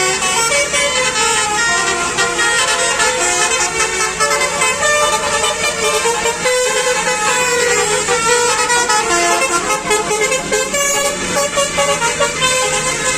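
Telolet Basuri multi-tone bus horns playing a melody, note after note in quick pitch steps, with several tones sounding at once. They play loudly and without a break.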